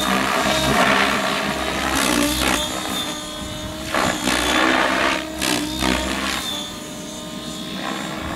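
Forza 700 radio-controlled helicopter flying aerobatics: a whirring rotor whine that bends up and down in pitch, with loud whooshing surges from the main rotor blades as it flips and turns, the strongest near the start and about four and five and a half seconds in.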